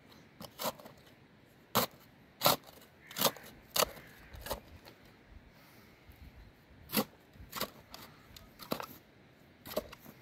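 Metal shovel digging into soil: about a dozen irregular sharp scrapes and chops as the blade is driven into the earth and dirt is lifted out of the hole, with pauses between strokes.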